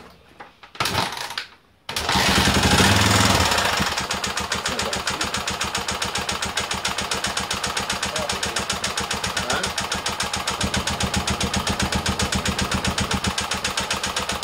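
Honda XL250S single-cylinder four-stroke engine kick-started: a short burst about a second in, then it catches about two seconds in, revs briefly and settles into an even, fast, regular idle. The freshly rebuilt engine runs with a nasty knock around the head that sounds like something hitting, which the mechanics doubt is the piston hitting and which better oil pressure has not cured.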